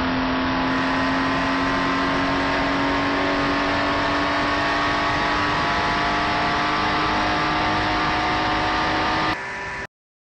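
Porsche 911 flat-six engine at high revs under full throttle, its pitch creeping slowly upward as the car accelerates. Near the end the sound drops in level and then cuts off abruptly.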